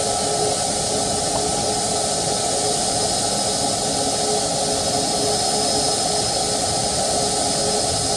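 Boeing 737 MAX 8's CFM LEAP-1B turbofan engines idling: a steady jet whine with a few faint held tones over a rushing hiss.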